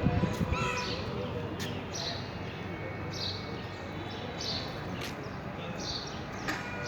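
A bird calling repeatedly, short high chirps about once a second, over a steady low background rumble with a few sharp clicks.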